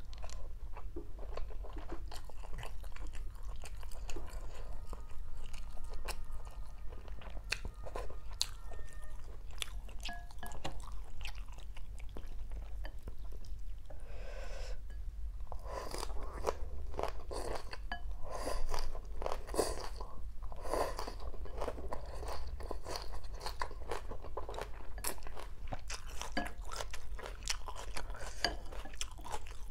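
A person chewing and crunching a mouthful of rice vermicelli with raw greens, a run of wet mouth clicks and crisp crunches that get busier about halfway through.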